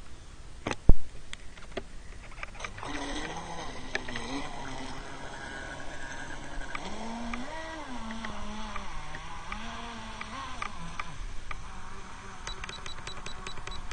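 Electric motor of a Snap 720EP radio-controlled speedboat whining across the water, its pitch rising and falling as the throttle is opened and eased. A sharp knock sounds about a second in.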